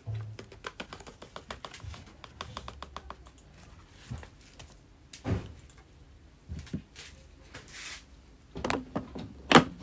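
Handling noises while preparing an espresso machine's portafilter: scattered light clicks and taps, a sharper knock about five seconds in, and a louder knock just before the end.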